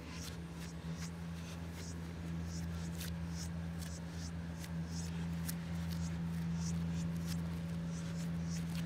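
Short scratchy scuffs, a few each second, like footsteps on a gritty, leaf-strewn path, over a steady low hum.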